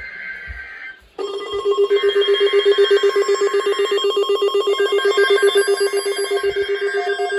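Electronic alert tone. A loud, rapidly pulsing buzz starts about a second in and holds steady, rung as an attention signal between weather warning messages.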